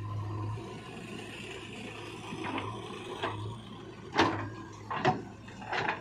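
JCB 3DX backhoe loader working, its diesel engine running under a series of sharp knocks from the boom and bucket as the arm swings. The three loudest knocks come in the second half, about a second apart.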